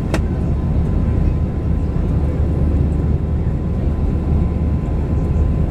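Cabin noise inside an Airbus A321-211 climbing out after takeoff: its CFM56-5B turbofans and the rushing air make a deep, steady rumble with a faint steady tone above it. One short click sounds near the start.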